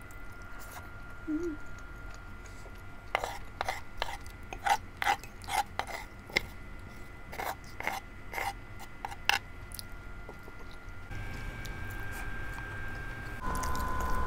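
Wooden spoon scraping across a wooden cutting board in a quick run of a dozen or so short strokes, from about three seconds in until nearly ten seconds in, gathering up the last of the sauce.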